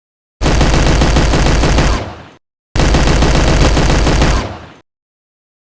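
Automatic gunfire sound effect: two long bursts of rapid machine-gun fire, each about a second and a half, with a short break between them and each tailing off at the end.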